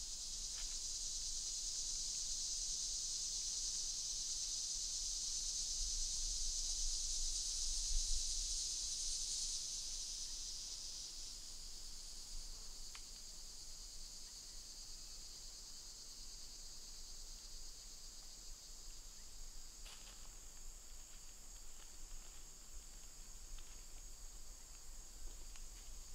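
A steady, high-pitched chorus of insects in summer woods, louder for the first ten seconds or so and then fading to a lower level. A few faint clicks, one about twenty seconds in.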